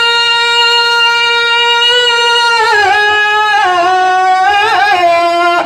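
A solo voice singing a naat, holding one long steady high note for about two and a half seconds, then descending through wavering melodic turns to a lower held note.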